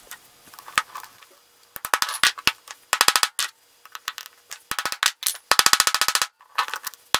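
Hammer tapping a steel nail set onto the end of a 12-gauge copper wire, peening it into a rivet that joins PVC against a steel bar underneath. A few single sharp taps, then short rapid runs of taps with brief pauses between.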